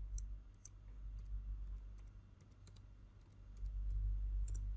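Computer keyboard keys clicking as an email address is typed, in scattered, uneven keystrokes over a low steady hum.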